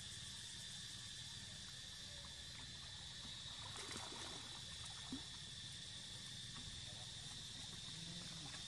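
Steady high-pitched drone of insects, with a few faint small rustles and ticks around the middle.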